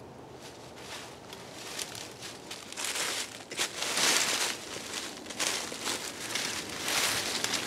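Dry fallen leaves rustling and crunching as a person steps and crouches in the leaf litter, handling things on the ground, in irregular crackling bursts. Faint at first, growing louder about three seconds in.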